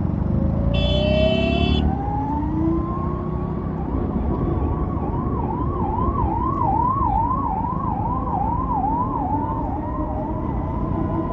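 Emergency vehicle siren rising in pitch, then switching to a fast up-and-down warble about twice a second, over steady road and wind noise. A short vehicle horn honk sounds about a second in.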